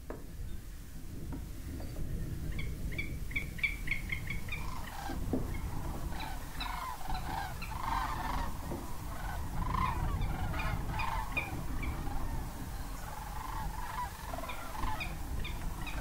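A chorus of many birds calling: rapid runs of short high notes mixed with lower calls, over a steady low rumble.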